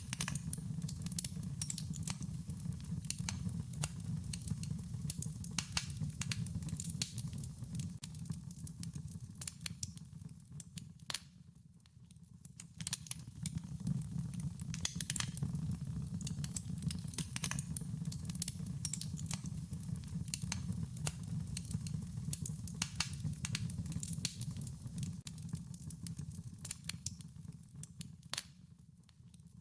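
Wood fire crackling: a dense run of sharp pops and snaps over a steady low rumble of burning flames. The crackle thins out briefly twice, about a third of the way in and again near the end.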